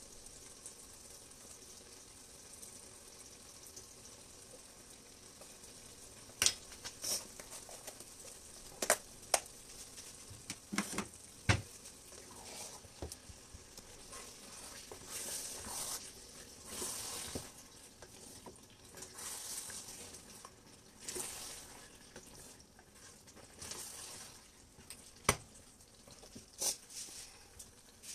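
Palm oil stew sizzling faintly in a stainless steel pot. From about six seconds in it is stirred with a spatula, with sharp clinks of the utensil against the pot and a scraping swish through the stew.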